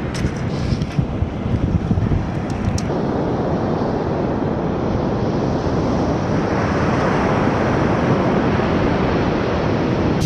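Wind buffeting the microphone, a steady rushing noise, with a few light clicks in the first few seconds.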